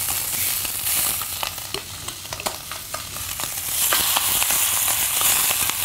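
Lamb shanks sizzling and spitting in hot oil in an enamelled casserole as they sear, with frequent short clicks of metal tongs against the meat and pot.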